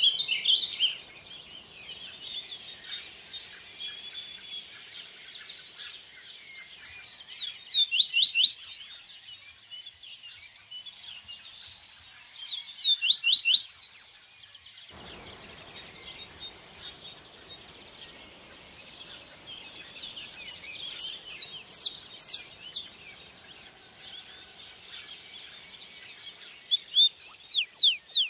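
Songbirds singing in several loud bursts of quick, sweeping high notes over the steady hiss of a flowing stream.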